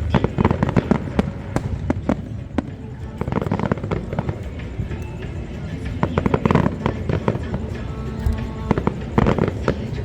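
Aerial fireworks bursting in rapid succession, a dense string of bangs and crackles with no let-up, over music.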